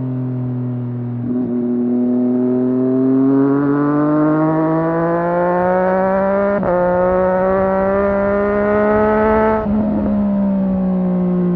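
2017 Triumph Street Triple 765 R's in-line three-cylinder engine pulling hard, revs climbing through two quick upshifts. About ten seconds in the throttle closes and the revs fall away.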